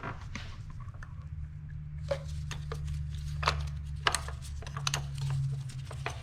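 Light clicks and taps of plastic ignition coil packs being handled and set down, scattered irregularly from about two seconds in, over a steady low hum.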